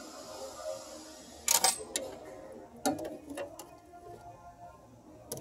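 A few sharp clicks and light knocks of hand handling around the engine's intake manifold, the loudest a short clatter about one and a half seconds in, with smaller ones about a second later and near the end.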